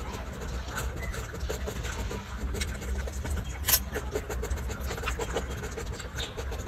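Rhesus macaque chewing a piece of cucumber: scattered small wet crunching clicks, one louder crunch a little past halfway, over a steady low rumble.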